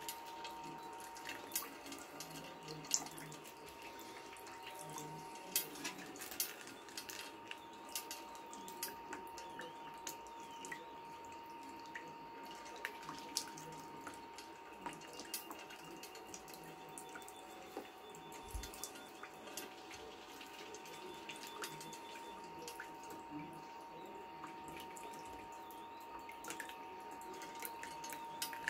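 Water couplant trickling and dripping on a pipe under an ultrasonic corrosion scanner, with scattered small clicks as the scanner's probe carriage is moved along its rail. A faint steady high tone runs underneath.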